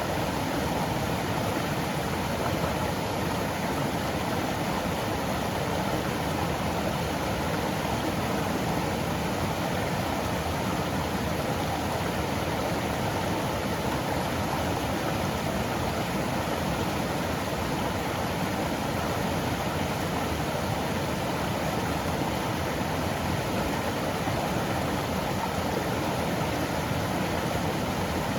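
Mountain stream running steadily over rocks and pebbles, an even rushing noise of water.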